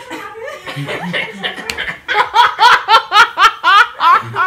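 Young women laughing: low chuckling at first, then, about two seconds in, a hard fit of laughter in loud, rapid bursts of about four a second.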